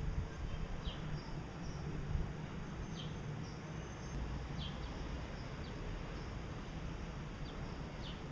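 Gouldian finches giving short, high chirps every second or two, over a steady low hum.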